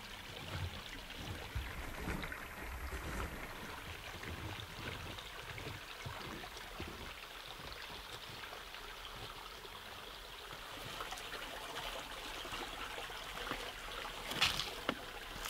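Shallow forest stream trickling over stones, a steady soft babble with small splashes. Near the end a single louder step lands on the wet stones.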